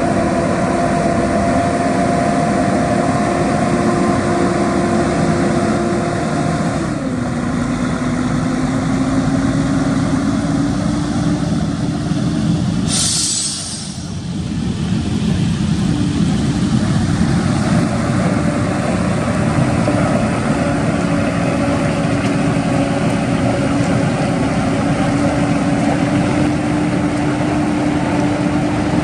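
Volvo FH700 road train's 16-litre six-cylinder diesel pulling a heavily loaded multi-trailer rig past: a steady engine note that drops in pitch about seven seconds in, as on a gear change, then climbs slowly as it accelerates. A brief, sharp hiss comes about halfway through.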